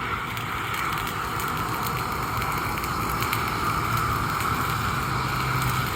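Fire burning in an in-ground bald-faced hornet nest, crackling steadily under a low, even hum.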